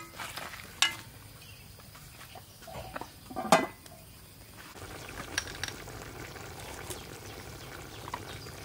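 A metal spatula clicking and scraping against a large aluminium cooking pot, then a louder metallic clank about three and a half seconds in as the aluminium lid goes onto the pot. A low steady sizzle of the braising goat meat follows, with a few faint clicks.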